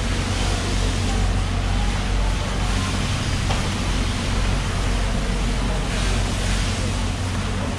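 Steady rush of water from a hose onto a wet concrete floor, over a constant low hum.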